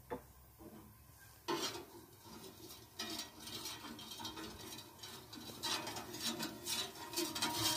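Slotted metal spatula scraping and rubbing across the steel plate of a gas flat-top griddle, spreading cooking oil, in irregular strokes that start about a second and a half in.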